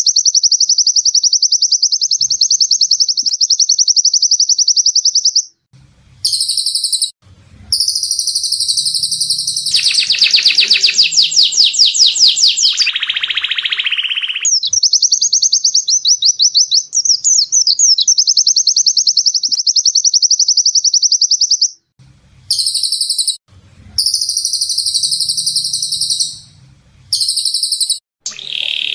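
A caged songbird singing fast, high-pitched trills in long unbroken runs, separated by short pauses. The same sequence of runs comes round twice.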